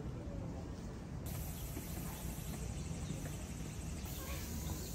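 Outdoor ambience on a wooded hillside trail: insects trilling steadily at a high pitch over a low rumble of wind on the microphone, the insect sound coming in abruptly about a second in.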